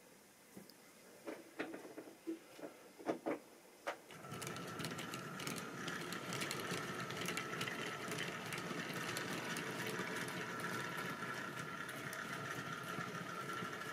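Tri-ang model railway goods wagons rolling along sectional track: a few scattered clicks and squeaks, then from about four seconds in a steady clattering rattle of wheels over the rail joints with a steady whine from the locomotive's small electric motor.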